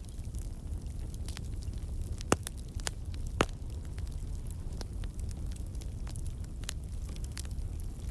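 Campfire burning with a steady low rumble and scattered crackles and pops from the burning wood, the sharpest pops about two and three and a half seconds in.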